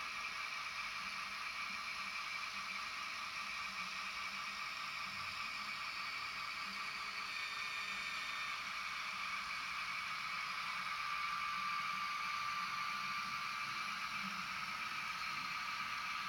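Model trains running along the layout: the small electric motors of the locomotives whir steadily as the wheels roll over the track. The whine grows slightly louder and higher a little past the middle.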